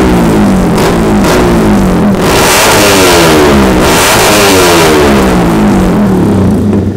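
Yamaha Sniper 150 engine built up to 186cc with a UMA 62mm big-bore block and head, a single-cylinder four-stroke, being revved through its aftermarket exhaust. Quick throttle blips come first, then two longer rises and falls in revs about two and four seconds in, and it drops back to a steady idle near the end. This is the freshly rebuilt engine's first sound check, with its ECU still awaiting final tuning.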